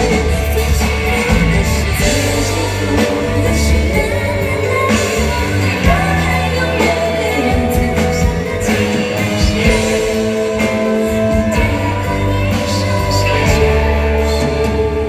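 A woman singing a Mandarin pop song live into a microphone, backed by a full band with drums, keyboards, guitars and strings.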